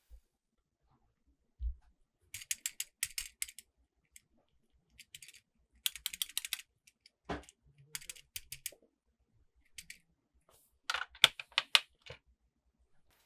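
Small plastic toy pieces and packaging being handled: four short runs of quick, sharp clicks and taps, with a couple of dull thumps as pieces are set down.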